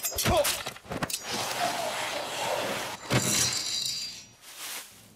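Stylised film sound effects of a blade: sharp metallic swishes and a long hissing scrape, with a second sharp strike about three seconds in that rings brightly before fading.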